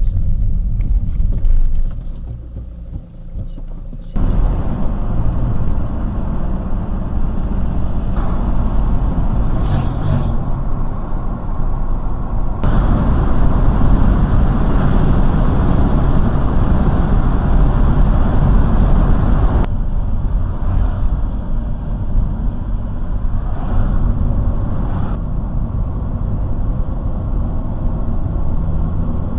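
Car driving, heard from inside: a steady low rumble of tyres and engine on the road. It drops for a couple of seconds about two seconds in, then changes suddenly several times as the road surface and speed change.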